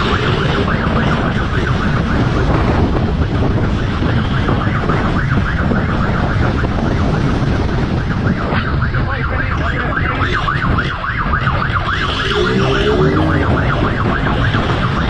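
Police motorcycle siren in a fast, continuous yelp over the rumble of the motorcycle's engine and wind on the microphone. The engine note rises briefly about twelve seconds in.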